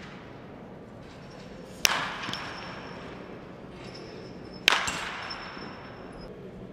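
Baseball bat striking a ball twice, two sharp cracks about three seconds apart, each ringing on with echo in a large indoor hall.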